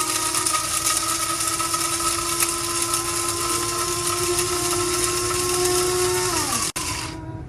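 Small electric coffee grinder grinding beans: a steady, high motor whine that winds down in pitch and stops about six and a half seconds in.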